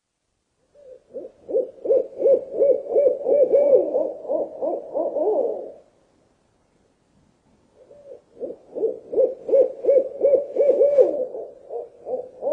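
Owl hooting in two runs of quick, repeated short notes, each run lasting about five seconds, with a pause of about two seconds between.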